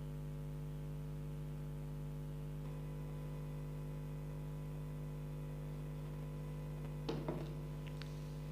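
Steady electrical mains hum with a stack of overtones, with a few brief clicks and rustles of handling about seven seconds in.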